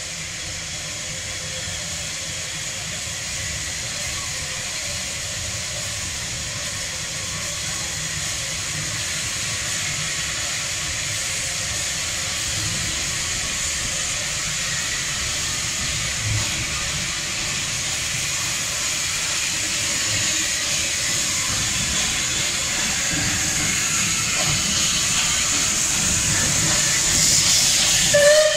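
Bulleid West Country class steam locomotive 34092 City of Wells working away from the platform: a steady hiss of steam over the rumble of its exhaust, growing steadily louder as it draws near, with a brief louder burst near the end.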